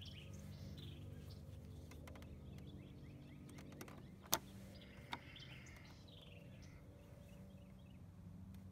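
Faint outdoor background with a steady low hum and birds chirping. A sharp plastic click about four seconds in, and a smaller one a second later, as a flathead screwdriver pries the plastic badge off the scooter's front grille.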